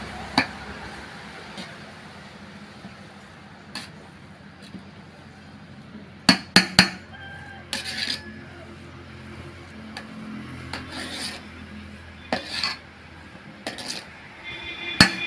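Metal ladle clacking and scraping against a large aluminium cooking pot as biryani rice is stirred, in scattered sharp knocks, several in quick succession about six seconds in.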